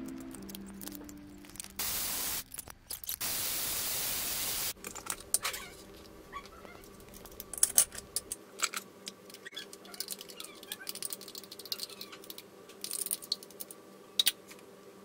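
Tommee Tippee baby-food blender running in two short pulses to purée cooked vegetables: a brief burst about two seconds in, then a longer run of about a second and a half. After that a plastic spoon scrapes and clicks repeatedly against the plastic jug and lunch box.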